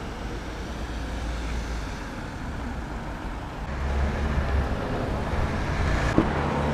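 Street traffic noise: cars passing on a city road, swelling louder about four seconds in as a vehicle goes by.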